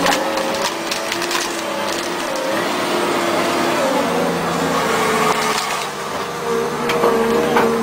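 Bulldozer engine working, its pitch rising and falling as it strains, with cracking and splintering of wood as playground equipment is crushed, most of it in the first second or so.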